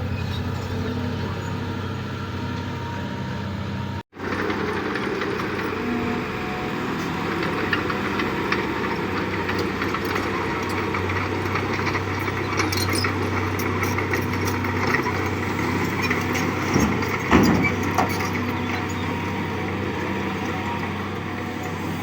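Excavator's diesel engine running with a steady hum. About four seconds in, the sound cuts out for an instant, then the engine continues with denser mechanical noise, scattered clicks and a few louder knocks of digging work.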